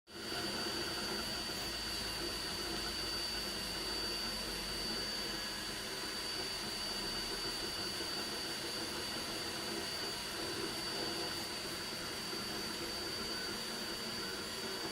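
MINGDA MD-16 mini desktop 3D printer running: a steady whir with a constant high-pitched whine, and a lower hum that comes and goes as the motors move.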